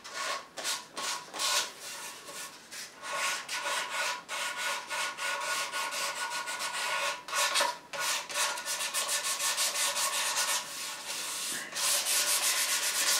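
Sandpaper rubbed by hand over a bare solid-wood Telecaster guitar body in a continuous run of quick back-and-forth scratchy strokes, smoothing the wood before grain filling.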